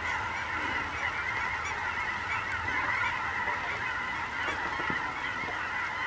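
A large flock of geese flying overhead, many birds honking at once in a dense, continuous chorus.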